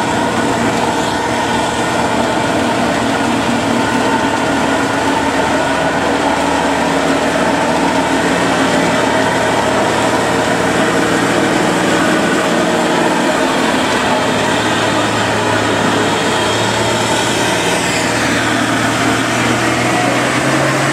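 Diesel engine of a heavy tanker truck running steadily under load, over a steady hiss. A faint falling whistle comes near the end.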